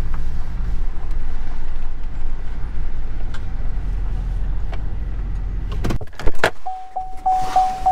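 Low steady rumble of a Chevrolet Silverado pickup inside the cab, dropping away about six seconds in. A few sharp clicks and a thunk follow as the driver's door is opened, then the truck's door-open warning chime beeps steadily, about three to four times a second.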